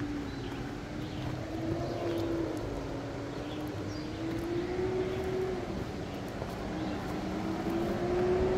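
A distant engine droning steadily, its pitch slowly rising and falling.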